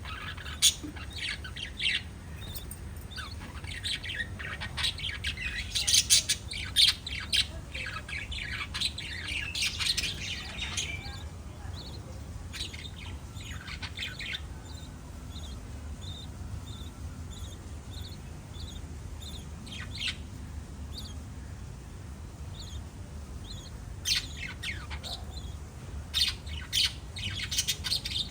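A small flock of pet budgerigars chirping and squawking: a busy chatter at first that thins to scattered short chirps, then picks up again near the end.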